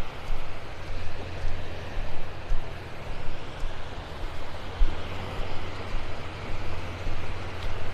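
Wind buffeting the microphone over the steady wash of shallow surf, swelling and easing every second or so.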